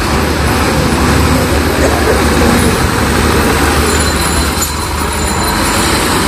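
A loaded Tata 1613 SE truck's diesel engine running steadily as the truck pulls out and turns onto the road at low speed, a continuous low rumble. A thin high whine joins about four seconds in.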